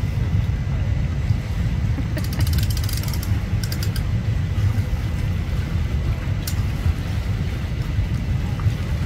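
Steady low rumble of boat engines idling and wind on the microphone. A boat-trailer hand winch ratchets in a quick run of clicks about two seconds in, and briefly again a second later.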